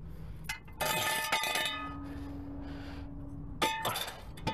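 Metallic clinking and rattling from a steel floor jack being worked under a car, in two clattery bursts with ringing tones, about a second in and near the end, with a steady low hum between them.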